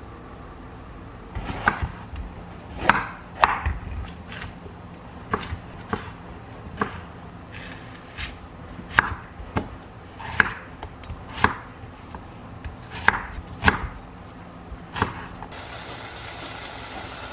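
Kitchen knife chopping food on a cutting board: slow, irregular strokes, roughly one a second. A steady hiss starts near the end.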